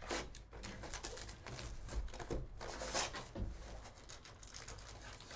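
Clear plastic shrink-wrap being torn off a sealed hobby box of trading cards, crinkling and crackling in an irregular run of short sharp rustles.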